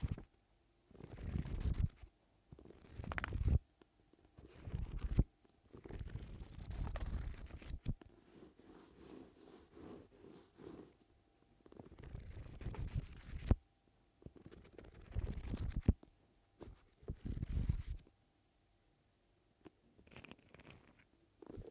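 Thick paperback book handled by hand: pages riffled and flipped, and the soft cover rubbed and lifted. The sound comes as a series of separate rustling bursts, each a second or two long, with short pauses between.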